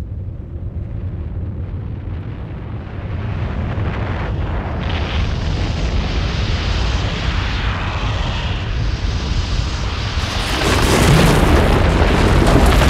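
Deep, continuous rumble of a powder snow avalanche, growing louder as the snow cloud approaches. About ten seconds in, the cloud's air blast reaches the microphone and turns it into a louder, rushing buffeting noise.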